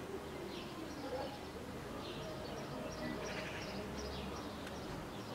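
Faint outdoor ambience with small birds chirping: short, high, falling notes in little runs.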